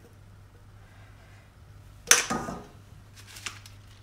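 A mixing bowl set down on a gas hob with one sharp clatter about halfway through, ringing briefly, followed by a few faint rustles, over a low steady hum.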